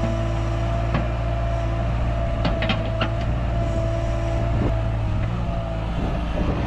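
Diesel engine of a Cat 305 mini excavator running steadily with a constant whine, and a few metallic clanks about two and a half seconds in.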